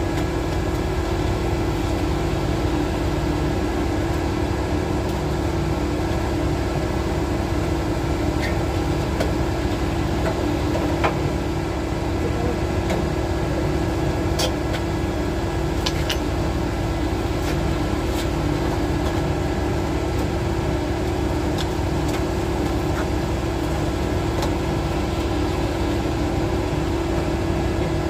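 Concrete line pump and truck mixer running steadily while concrete is fed into the pump's hopper: a constant engine drone with an even hum and a few faint clicks.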